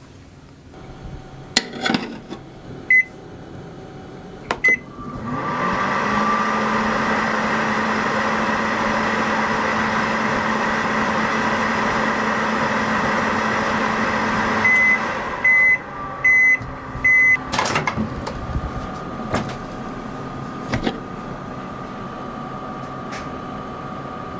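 Microwave oven heating a marshmallow: a few clicks and two short beeps, then about ten seconds of steady humming that stops at the end of the cycle with four loud beeps, followed by sharp clicks.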